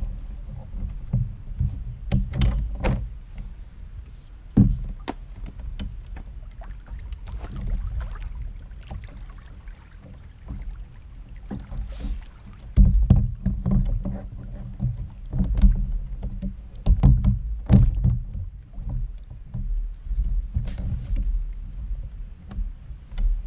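Fishing kayak being paddled: irregular paddle splashes and knocks against the hull over a low rumble, busiest near the middle and later part.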